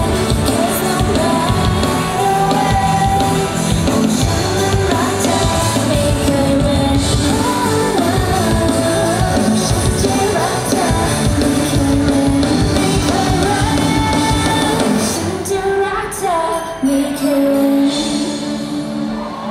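Pop song performed live over a concert PA: female voices singing into microphones over a band with drums and bass guitar. The drumming thins out about three-quarters of the way through, leaving the voices and sustained notes.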